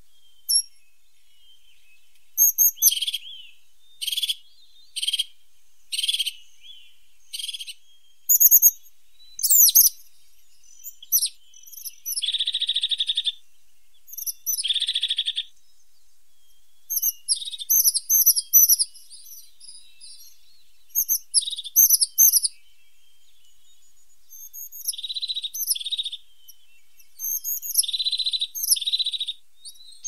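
Crested tit calling: many short, high, thin notes, some in quick runs, mixed with buzzy trills about a second long.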